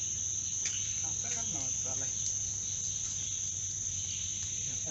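Steady high-pitched chorus of night insects, with faint voices in the background.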